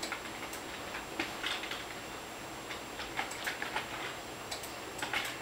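Computer keyboard keys tapped one at a time in an irregular rhythm, a code being typed in.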